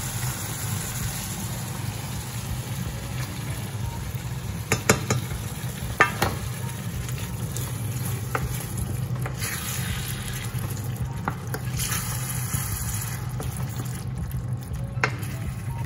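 Chopped tomatoes and canned tuna sizzling in oil in a stainless steel pan while a wooden spoon stirs them, with a few sharp knocks of the spoon against the pan.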